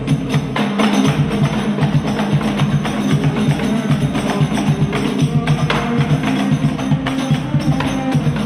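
Rebana frame drums beating a fast, steady interlocking rhythm over held tones, a sholawat ensemble played through a home-built speaker system.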